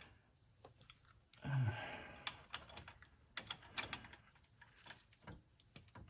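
Irregular light metallic clicks of a socket wrench ratcheting as a new oil pressure switch is tightened into the engine block. A short sigh comes about a second and a half in.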